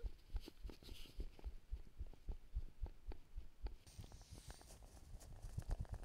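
Faint, irregular low thumps and knocks of a bicycle and its handlebar-mounted camera jolting over a bumpy dirt path, with a brief hiss about four seconds in.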